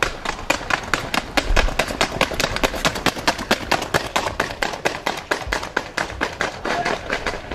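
Horse trotting fast on wet asphalt: a quick, even clatter of hoofbeats, about seven strikes a second.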